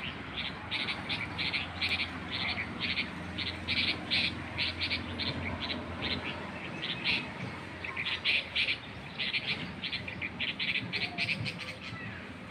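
Baby bulbul calling, a quick run of short, harsh chirps, two to three a second, with a brief pause about halfway through.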